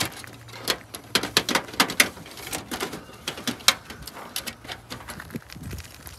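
Thin aluminium foil pans of a home-made smoker handled with work gloves: a run of irregular crinkles, taps and clicks.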